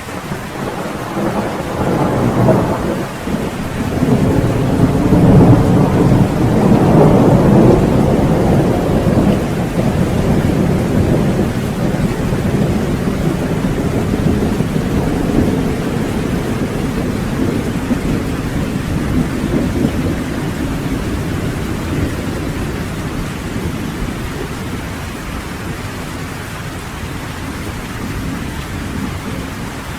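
Steady rain with a long roll of thunder that builds over the first few seconds, peaks, and slowly dies away.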